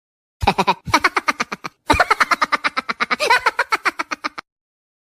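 A person laughing hard, a rapid run of "ha-ha-ha" pulses about eight a second, in two bouts with a short break near two seconds in: a comic laughing sound effect.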